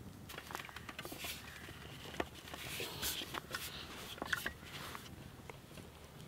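Soft handling sounds of scone dough being worked on a wooden chopping board: flour sprinkled, the dough rolled out and a round cutter pressed in, with scattered taps and rustles and a couple of sharper knocks about two and four seconds in.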